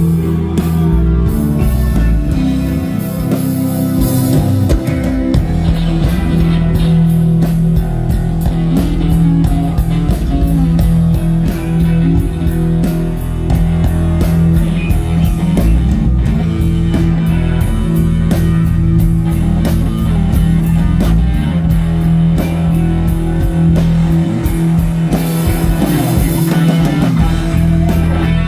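Live band playing an instrumental rock passage: electric guitar, electric bass and drum kit keeping a steady beat.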